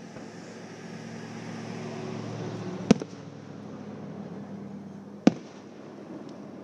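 Two aerial firework shells bursting, each a single sharp bang, about two and a half seconds apart, over a steady low hum.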